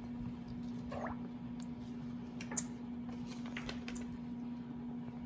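Light splashing and dripping of water as a small plastic toy watering can is dipped and swished in a plastic bowl of water to fill it, with a few soft clicks. A steady low hum runs underneath.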